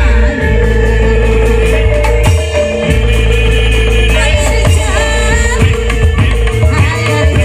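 Loud music with a singing voice over a heavy, steady bass line, accompanying a Reog Indramayu troupe.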